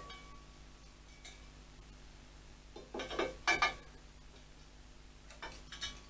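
Light metallic clinks and taps with a brief ring, machinist's calipers and a bit of metal knocking against the motorcycle's wheel and fork leg while the gap is measured. A faint tap about a second in, a cluster of several clinks about three seconds in, and two more near the end.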